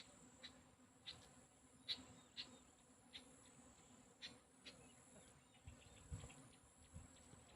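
Faint, steady insect buzzing in the forest, which the listener takes for bees that can be heard but not seen. A high, continuous whine and a low hum run under scattered short ticks.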